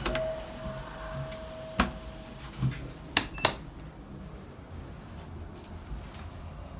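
Hitachi Urban Ace elevator's electronic signal: one steady beep tone held for about two seconds, then three sharp clicks from the car's mechanism or buttons, one near the end of the tone and two close together a second later, before the car falls quiet.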